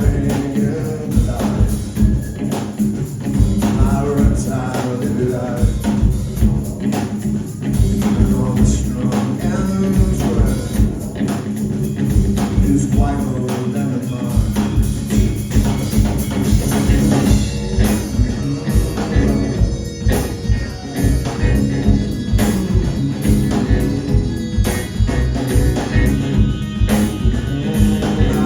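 Live band playing a rock song: drums keep a steady beat under bass and guitar.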